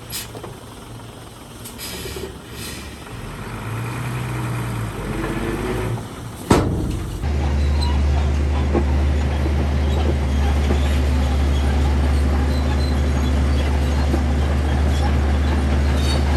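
Heavy diesel construction machinery working: an uneven engine sound with a few clanks, then a sharp bang about six and a half seconds in. After that comes a steady, deep diesel engine drone.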